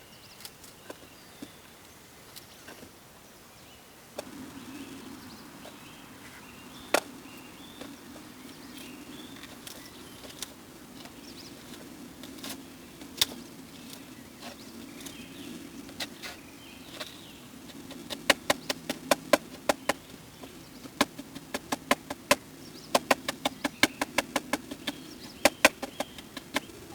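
A knife chopping on a cutting board: single strokes at first, then quick runs of several strokes a second in the second half, over a steady low hum that starts about four seconds in.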